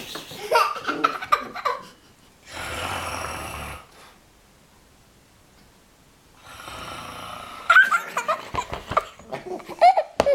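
An adult's pretend snoring, two long drawn-out snores a few seconds apart, each answered by a young child's bursts of laughter.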